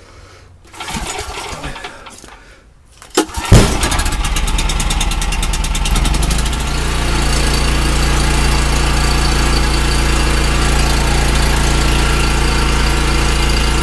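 Portable gasoline generator's engine pull-started: a slow draw on the recoil cord, then a hard pull about three and a half seconds in that catches at once. The engine picks up speed and settles into a steady run, starting readily on gas with a little oil added.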